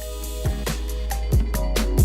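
Background music with drums, a deep bass and a steady beat.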